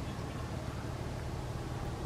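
Sea waves washing steadily against the shore, an even noise with a low rumble underneath.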